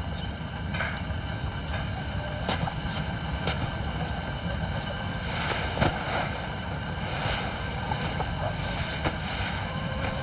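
A steady low drone, with a few faint ticks and one slightly louder click about six seconds in.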